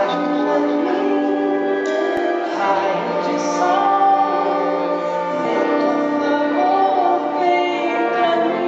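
A woman singing live into a microphone over instrumental accompaniment, with long held notes that glide in pitch.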